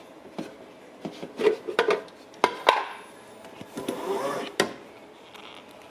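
Knocks, rubbing and clicks of a drip coffee maker's parts being handled while it is filled, with a sharp click shortly after the middle.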